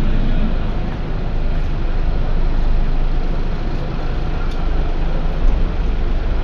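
Traffic on a wet city street: engines and tyres on the wet road make a steady low rumble with a hiss over it.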